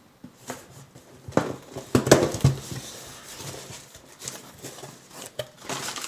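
Packaging being handled and opened: rustling with a few sharp knocks, the loudest cluster about two seconds in.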